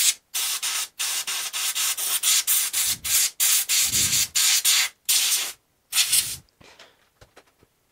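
Rapid back-and-forth scrubbing strokes on a graphics card's circuit board as it is cleaned before a power-on test, about two to three strokes a second. The strokes stop about six and a half seconds in, leaving a few faint ticks.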